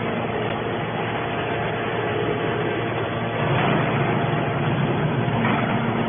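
Hydraulic scrap-metal baler running: a steady mechanical hum and rumble of its hydraulic power unit, getting a little louder about three and a half seconds in.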